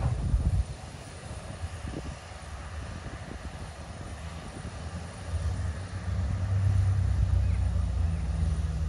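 A steam locomotive's exhaust beats die away in the first half-second, leaving a low rumble. From about five seconds in, a steady low engine drone builds up and holds.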